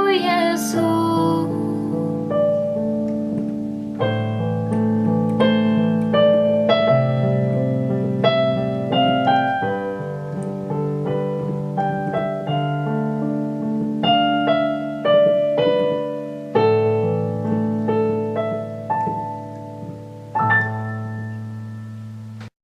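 Piano playing the slow instrumental close of a ballad, melody notes over held low chords, with a sung note trailing off just at the start. A last chord is struck near the end and the sound then cuts off abruptly.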